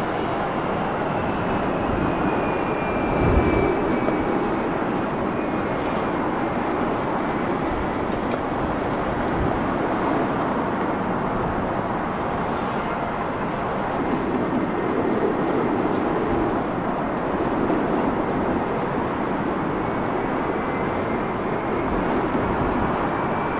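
Jet engines of a Eurowings Airbus A320-family airliner at climb power after takeoff: a steady roar with a high whine that falls in pitch in the first couple of seconds. Gusts of wind rumble on the microphone, and near the end a rising whine comes in from another airliner on approach.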